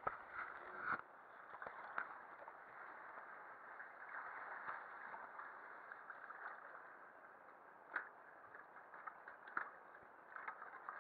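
Water splashing and lapping against an inflatable canoe, with scattered sharp knocks and taps, the clearest near the start, at about two seconds and at about eight seconds.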